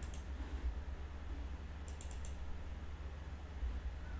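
A quick run of about four sharp computer clicks about two seconds in, over a low steady hum.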